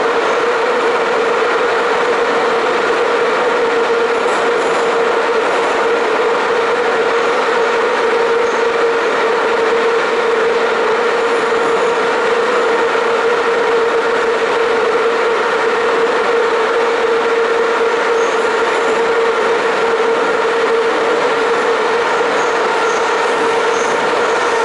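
Inside a Soviet-built 81-717/714 'Nomernoy' metro car running at steady speed through the tunnel: a loud, even rumble of wheels on rail with a steady whine.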